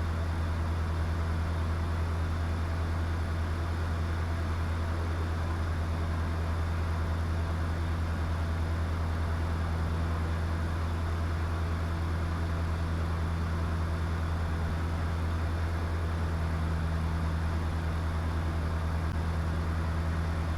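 Diamond DA20 light aircraft's engine and propeller droning steadily in the cockpit, a low, unchanging hum.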